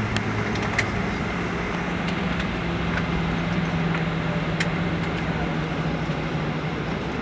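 Cabin noise inside a Boeing 737-800 rolling after landing: a steady rumble with a hum that slowly falls in pitch, and a few light rattles and clicks.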